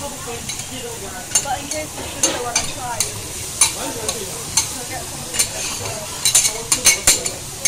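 Seafood and beef sizzling on a hot flat-top teppanyaki griddle, with metal spatulas clacking and scraping on the steel plate. The clacks come in a quick cluster near the end.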